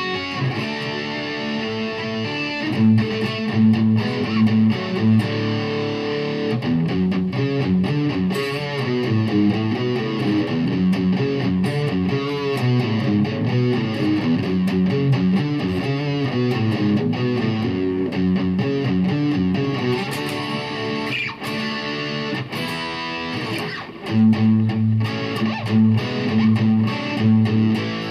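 Distorted electric guitar, an LTD with EMG pickups played through a Yamaha THR10X amp, picking a chord progression and riffs with the chords changing throughout.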